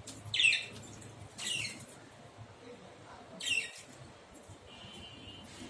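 Myna bird giving three short harsh calls, each falling in pitch, the first the loudest, with a faint thin whistle near the end.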